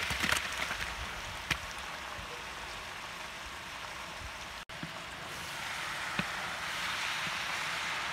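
Tiger prawns sizzling in hot sesame oil in a large aluminium pan, a steady frying hiss with a few knocks at the start as the prawns drop in. After a brief break about two-thirds through, the sizzle is a little louder.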